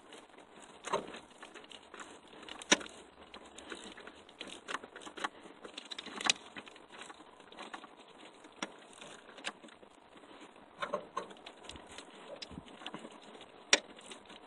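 Ratchet with a universal-joint socket and extension working on the clutch master cylinder mounting bolts: scattered, irregular metal clicks and clinks, with a few sharper knocks, the loudest near the end.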